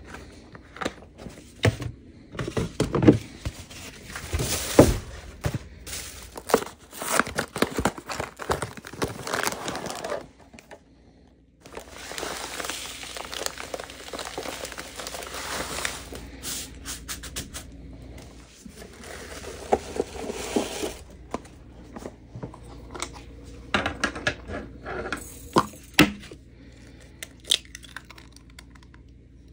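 Crinkling and tearing of a foil package being handled and opened by hand, with light knocks and rustles of paper plates being set out on a counter.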